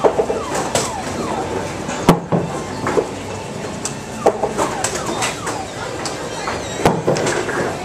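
Amusement arcade din: electronic game machines sounding many short falling-pitch chirps and beeps over a steady background of game noise, broken by sharp clicks and clacks.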